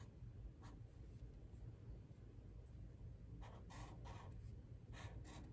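Faint scratching of a Sharpie permanent marker's felt tip drawing short strokes on sketchbook paper, one stroke near the start and a cluster of quick strokes from about three and a half seconds on.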